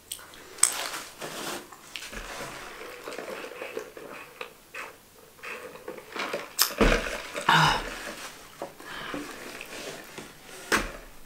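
Close-up eating sounds: chewing and mouth noises, with a few sharp knocks as a large fast-food drink cup is picked up and set back down on the table.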